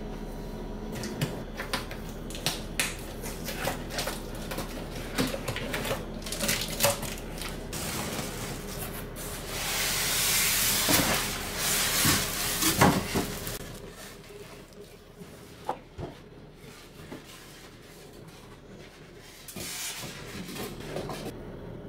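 Kitchen handling sounds: a string of light clicks and knocks as items are picked up and set down, with a rushing hiss for a few seconds about ten seconds in.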